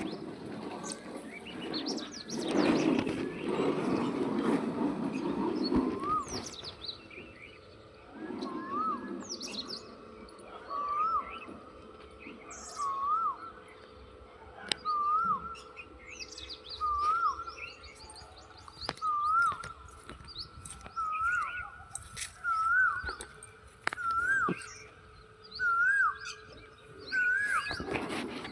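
A bird repeating one short whistled note about every two seconds, each a little higher than the last, with other birds chirping faintly. A rumbling noise comes and goes in the first few seconds.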